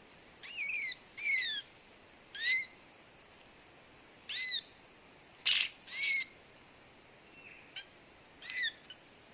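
Kapas tembak (olive-winged bulbul) calling: about nine short, clear call notes that bend up and down in pitch, given singly and in quick pairs at uneven gaps. The loudest and sharpest note comes about five and a half seconds in.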